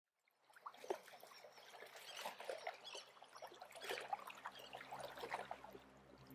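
Faint water lapping and trickling, small irregular splashes as of a wooden boat moving through calm water. A low steady hum runs underneath and deepens about three seconds in.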